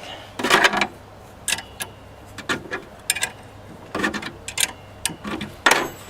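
Irregular clicks and rattles of a table saw's riving knife and its cam lock being worked loose and handled, in short clusters about every half-second to second.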